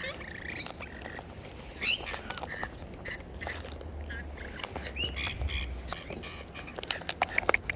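Short nasal calls from birds gathering to be fed, a few seconds apart, with a run of sharp clicks near the end.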